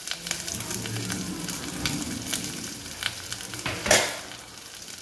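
Sliced onions and green chillies sizzling in hot oil in a stainless steel pressure cooker, freshly added, with scattered crackles. One sharp, louder crack comes about four seconds in.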